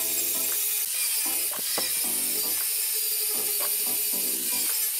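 Electric angle grinder with an abrasive disc grinding rust off a steel shovel blade: a steady, high-pitched grinding hiss. Background music plays underneath.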